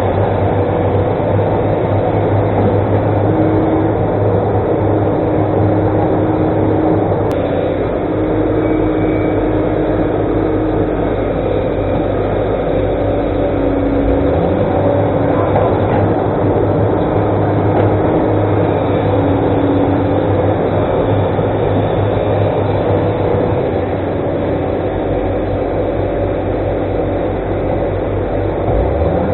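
Excavator diesel engine running steadily, with its pitch stepping up and down now and then.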